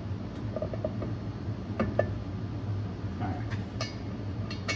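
Scattered metal clinks and taps, some with a short ring, as a 4-inch steel driveshaft is worked back into the transmission yoke, over a steady low hum.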